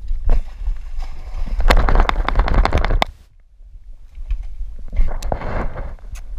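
Rumble and rustling from a camera strapped to a dog's back, with bursts of crackling noise as the dog moves and its fur rubs the camera; it drops away briefly about three seconds in.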